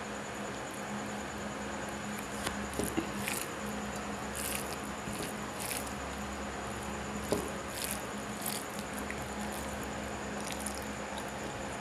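Fingers squishing and mixing cooked rice with boiled vegetables on a plate, with chewing and mouth sounds of eating by hand: soft, scattered wet squelches over a steady low hum.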